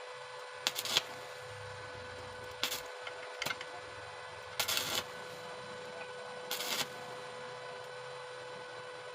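Stick (arc) welding on thin sheet metal with an oversized 2.6 mm electrode: about five short bursts of arc crackle, each under half a second and one to two seconds apart, as the arc is struck and broken in quick dabs. A steady electrical hum lies underneath.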